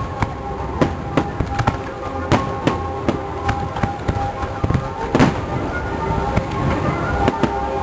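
Aerial firework shells bursting in irregular sharp bangs, several a second, the loudest about five seconds in, over music played for the pyromusical display.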